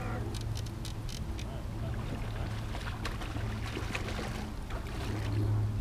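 Steady low hum from the bass boat's motor, with water splashing in the second half as a hooked bass thrashes at the surface beside the boat.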